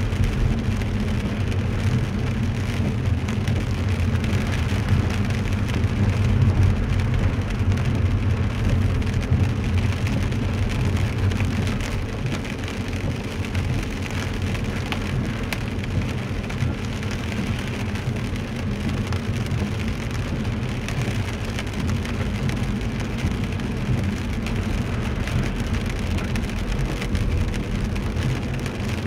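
Rain falling on a car's windshield and body, heard from inside the cabin over a steady low rumble of tyres on the wet road.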